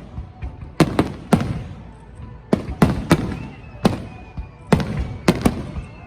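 Aerial fireworks bursting: about nine sharp bangs at uneven intervals, each followed by a rumbling echo, with a faint high whistle slowly falling in pitch through the second half.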